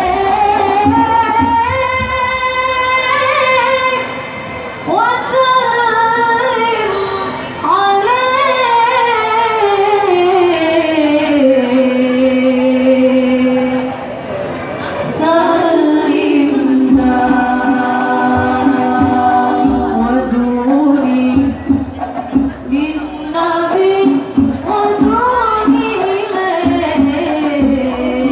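Young women's voices singing a banjari-style Islamic devotional song (sholawat) over a PA, in long melismatic lines that glide up and down with some notes held. Frame drums are faint underneath.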